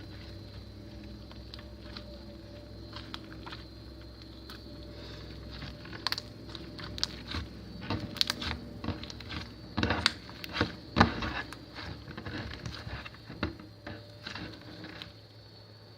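Soft slime mixed with clay being kneaded and stretched by hand: irregular sticky clicks and crackles starting about six seconds in, over a steady low hum.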